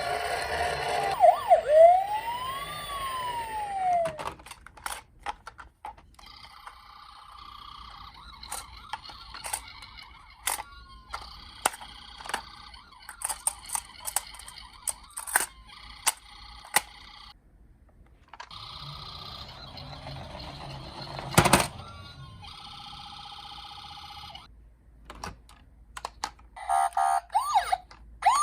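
Electronic siren sounds from toy emergency-vehicle minicars: a rising and falling wail at first, then two-tone siren patterns that start and stop several times, and the wail again near the end. Scattered plastic clicks run through it, with one sharp knock about two-thirds of the way through.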